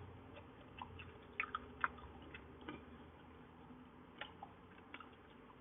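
Faint, irregular clicks and chewing from a person eating French fries close to the microphone.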